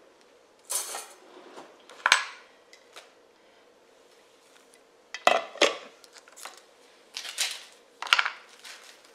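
Kitchen clatter: dishes and utensils knocking and clinking, a series of short sharp knocks spread over several seconds.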